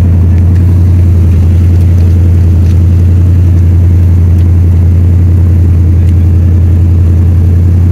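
A motor vehicle's engine running steadily and loudly, a constant low hum that holds unchanged throughout.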